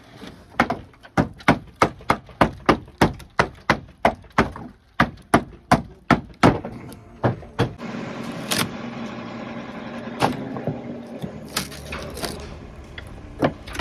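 Rapid hammer blows on old wooden roof boards (voliges), about three a second for some six seconds, as the boards are knocked off the rafters. The blows stop about halfway through, leaving a steady low background with a few scattered knocks and clatters of wood.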